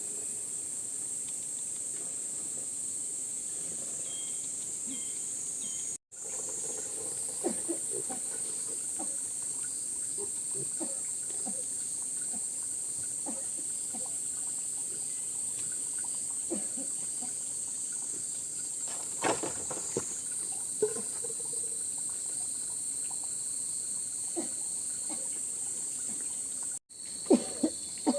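Steady high-pitched insect chorus, crickets or similar, with scattered light knocks and clatter. The sound cuts out for an instant twice: about six seconds in and again near the end.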